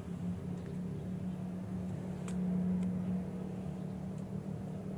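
A steady low motor hum, like an engine running, with a few faint clicks over it.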